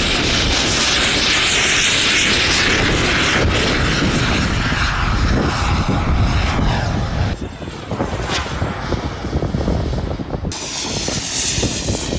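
Miniature jet turbine of a 3-metre radio-controlled jet running at high power through the takeoff and a low fly-by: a loud, steady rush with a faint high whine on top. The sound changes abruptly twice, about seven and ten seconds in.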